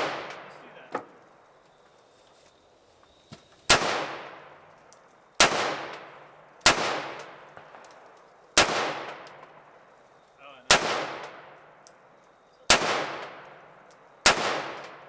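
AR-style rifle fired in single shots, seven of them about one to two seconds apart, each a sharp crack followed by a fading echo.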